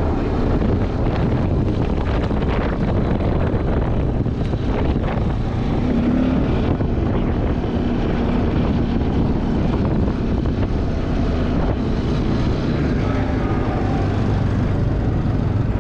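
Steady rumbling noise of riding over a dirt farm lane: wind buffeting the microphone, with a low drone underneath.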